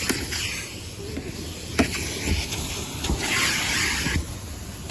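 Car-wash vacuum hose sucking at a car's seat and door sill: a rushing hiss that swells and fades as the nozzle moves over the upholstery, with one sharp click a couple of seconds in.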